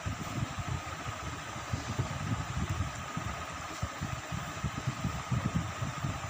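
Steady machine-like hum with a constant mid-pitched tone and uneven low rumbling.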